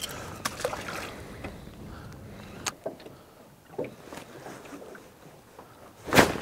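Water lapping against the hull of a small open boat, with scattered light knocks on the boat and one louder knock just before the end.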